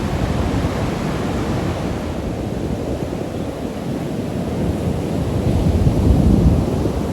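Ocean surf breaking and washing onto the beach, with wind buffeting the microphone in a low rumble. The noise swells louder about six seconds in.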